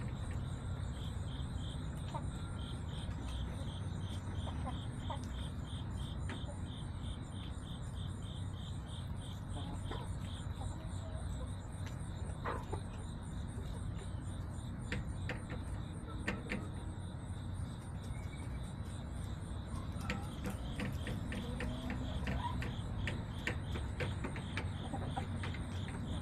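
Crickets chirping steadily in a fast, even pulse over a low background rumble, with scattered light clicks and taps.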